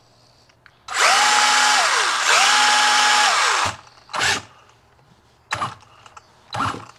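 Brushless RC motor with a KingVal 35 A ESC being run up on the throttle after a brushless conversion: twice it spins up to a steady high whine, holds about a second, and spins back down, followed by a few shorter, fainter blips. This is the first power-up test of the new motor and ESC.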